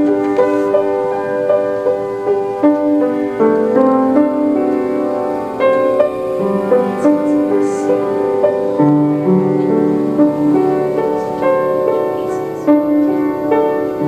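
Background music led by piano: a slow melody of held notes, each starting with a clear attack.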